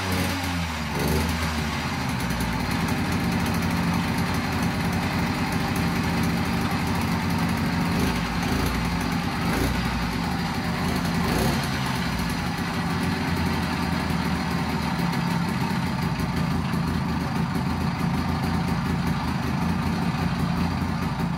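Small two-stroke bicycle-kit engine on a motorized bicycle running steadily at idle, with only slight wavers in speed.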